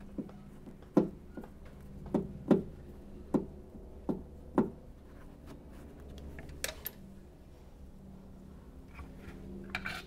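Plastic push-type retaining clips on a trunk-lid carpet liner clicking as a Phillips screwdriver turns out their center pins and the clips are worked loose. About eight sharp clicks come in the first five seconds, followed by a few fainter, higher clicks near the end.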